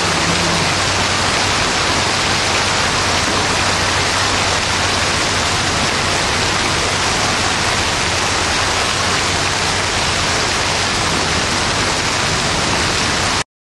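Heavy rain and hail pouring down in a steady, loud downpour, with a faint low hum underneath. It cuts off suddenly near the end.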